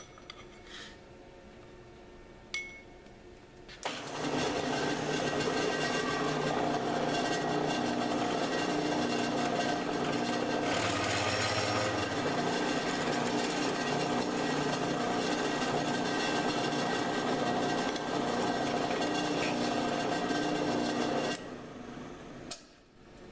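Drill press motor starting about four seconds in and running steadily with a hum while a twist drill bores a hole into a steel bar, with a brief harsher cutting noise near the middle. The motor shuts off a couple of seconds before the end, after a few light handling clicks at the start.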